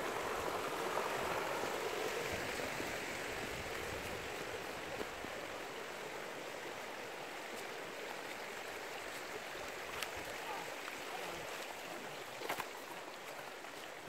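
Water of a shallow, rocky creek rushing over stones: a steady rush, a little louder in the first few seconds. Two faint clicks later on.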